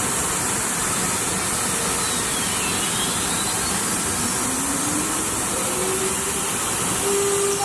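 CNC router spindle spinning up: a whine that starts about halfway through, climbs steadily in pitch and levels off near the end. Under it runs a steady rush of machine noise.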